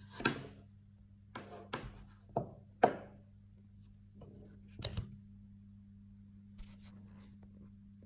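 A series of sharp knocks and taps, about seven, loudest about three seconds in, over a steady low hum.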